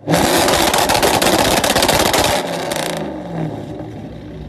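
Parked Audi saloon's engine revved hard, its loud exhaust crackling and popping rapidly; about two and a half seconds in the revs drop and fall away.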